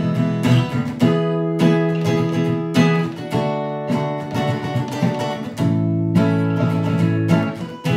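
Acoustic guitar strummed in a steady rhythm, the chords ringing between strokes, with a chord change about two-thirds of the way through.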